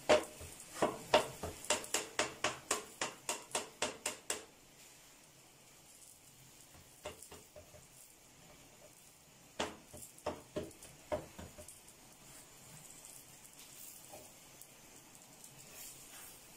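Hand patting and pressing the edges of a stuffed radish paratha on a plastic tray: a quick run of about fifteen taps, roughly four a second, then a few scattered taps.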